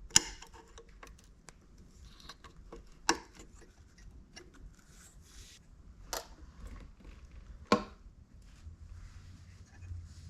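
Small parts of the welding positioner's motor brush holder being handled and clipped in: scattered sharp clicks and light knocks, the loudest right at the start, about three seconds in, about six seconds in and near eight seconds, with fainter ticks between.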